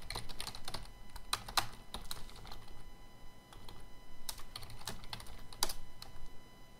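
Typing on a computer keyboard: irregular runs of keystroke clicks with short pauses between them, fewer keystrokes near the end.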